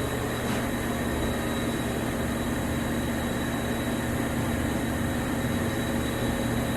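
Shop heater running: a steady drone with a low hum and a faint high whine.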